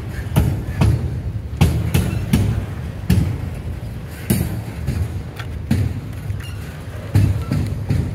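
Double-stack intermodal freight cars rolling past, a steady low rumble with irregular clicking thumps from the wheels on the rails.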